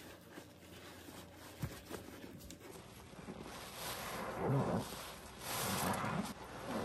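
A foamy sponge loaded with thick pine cleaning paste is squeezed by hand. It starts with faint wet crackles and pops, then two squelching squeezes, the first a little past halfway and the second near the end.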